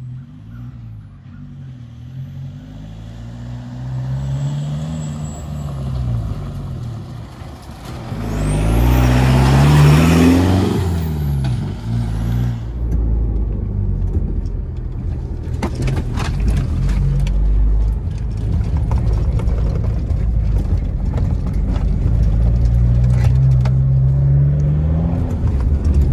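Stage 2 remapped Isuzu D-Max V-Cross pickup's diesel engine revving up and falling back again and again as it is driven over a rough off-road track. It is loudest in a surge of engine and rushing noise from about eight to twelve seconds in.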